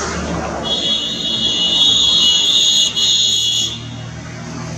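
Cicada buzzing: one steady high-pitched drone that starts about half a second in and stops after about three seconds, over a low background rumble.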